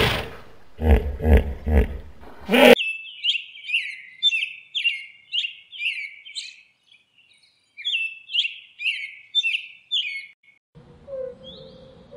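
A hippopotamus calling with loud, deep, pulsed grunts for the first two and a half seconds. Then comes a rapid run of high chirps that fall in pitch, about two or three a second with a short pause midway. Near the end a faint steady hum joins softer chirps.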